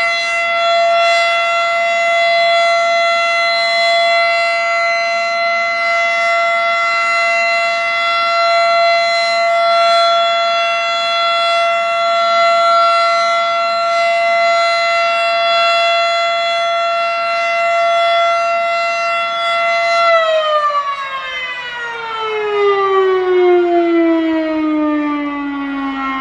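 FS&S Model 7 outdoor warning siren sounding the steady full-alert tone. About twenty seconds in it winds down, its pitch falling smoothly.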